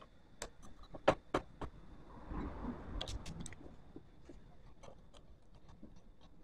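Hands working on a motorcycle's front fork parts: a string of sharp clicks and light knocks, the loudest about a second in, with a low shuffling handling noise around the middle and small ticks after.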